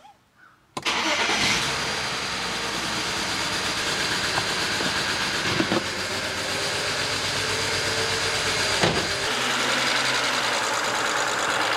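BMW N54 twin-turbo straight-six starting abruptly about a second in and settling into a steady idle, with a misfire on cylinders one and four. Heard from inside the cabin, then from the open engine bay near the end.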